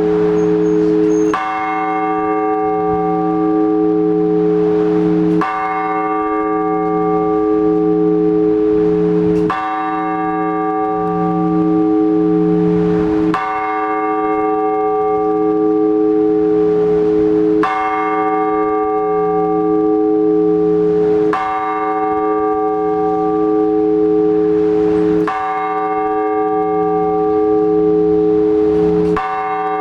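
A single large Orthodox church bell struck slowly and evenly, eight strokes about four seconds apart, each ringing on with a deep hum until the next stroke. This is the blagovest, the slow single-bell toll that calls worshippers to the all-night vigil.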